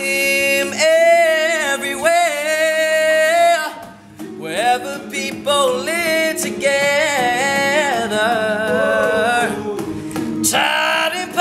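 All-male a cappella group singing: a lead voice holds and bends long notes over the group's backing vocal harmonies, with a brief break about four seconds in.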